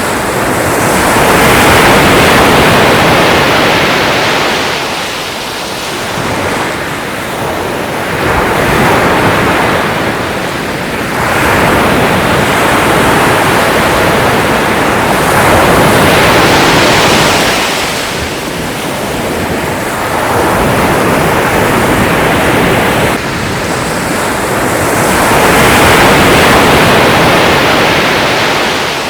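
Sea waves breaking and washing on a shore, a steady loud rush that swells and ebbs as each wave comes in, about every four to six seconds.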